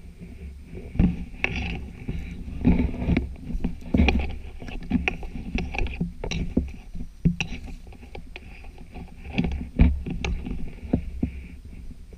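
Someone pushing on foot through dense broom and dead bracken: irregular crackling, swishing and snapping of stems and brush against body and microphone, with footsteps and a steady low rumble on the microphone.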